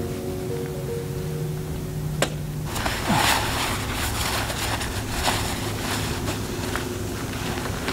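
Background music ends about two and a half seconds in, just after a sharp click; then the rustling and crackling of a nylon puffer jacket and backpack straps as a large backpack is shouldered and its straps adjusted, over a low steady rumble.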